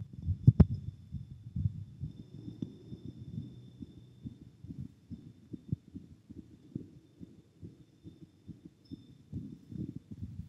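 A boy's heartbeat after exercise, picked up through a plastic chest piece pressed to his bare chest: a run of low, dull thumps. A sharp knock about half a second in as the chest piece is set against the skin.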